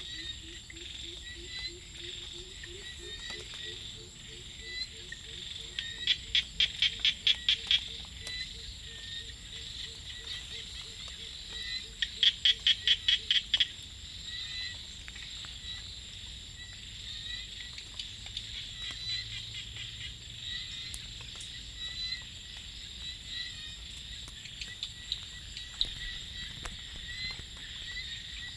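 Evening rice-field chorus of small frogs and insects: a steady high insect whine with many small overlapping calls. Twice, about six and twelve seconds in, a loud run of rapid pulses lasts about two seconds. A faint low pulsed call rises in pitch over the first few seconds.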